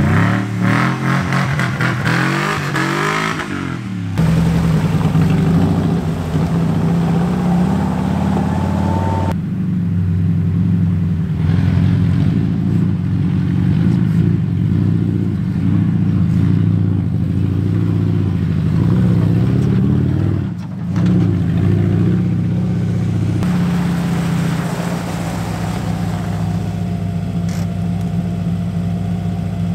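VW Vanagon Syncro van driving, its engine running steadily under load and wavering in pitch as it speeds up and eases off. The sound changes abruptly a few times.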